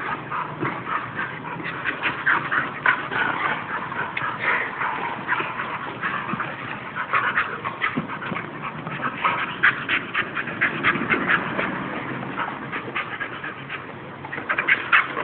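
An adult bull terrier and a bull terrier puppy play-wrestling, making a quick run of short dog noises that are busiest in the middle and again near the end.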